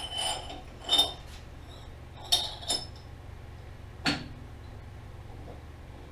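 Steel collet being fitted by hand into a metal lathe's headstock spindle, with sharp metal-on-metal clinks: about five in the first four seconds, two of them close together about two and a half seconds in.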